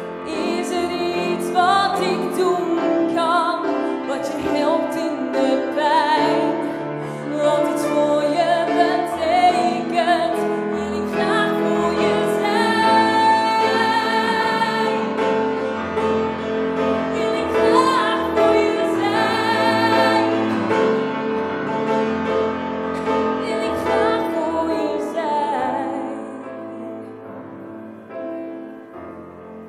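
A woman singing a slow ballad to grand piano accompaniment, holding long notes with vibrato; the music fades away near the end.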